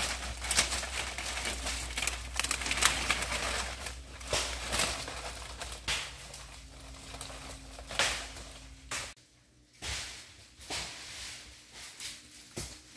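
Dry, dead nipa palm fronds crackling and snapping as people push through them and step on them, a dense run of crunches and rustles that thins out after about nine seconds.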